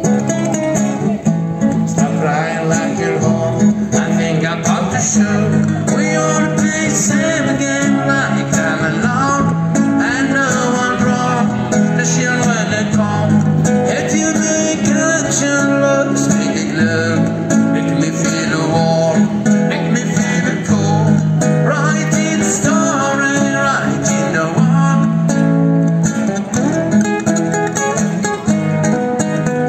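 Acoustic guitar played through a small acoustic amplifier, picked and strummed steadily without a break.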